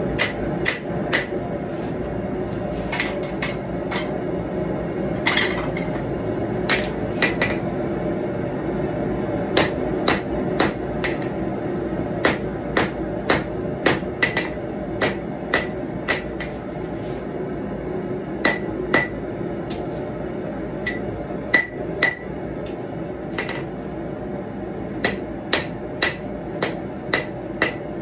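Hand hammer striking a red-hot steel knife blade on an anvil: irregular blows, roughly one or two a second, many with a short metallic ring from the anvil. A steady low hum runs underneath.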